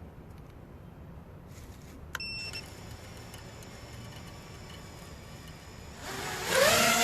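FPV quadcopter's electric motors at low background hum, then spinning up near the end into a loud rising whine that levels off. A short click with a brief high beep comes about two seconds in.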